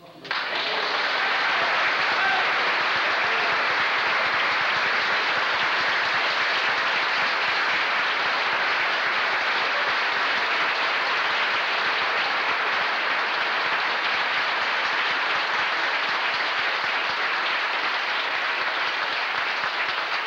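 Audience applause: a large crowd clapping in a dense, steady wash that breaks out just after the start and holds throughout.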